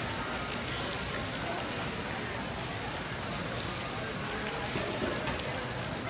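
Streams of water falling from a ceiling fountain and splashing into the pool below, a steady rain-like patter.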